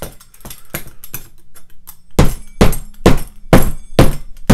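Metal pizza-cutter wheel jabbed repeatedly down onto a cardboard shipping box to cut through cloth-reinforced packing tape. Light clicks and scrapes at first, then from about two seconds in a run of hard thuds, about two a second.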